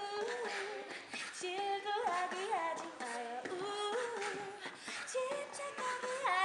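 Female voices singing a K-pop song into microphones, with a beat underneath.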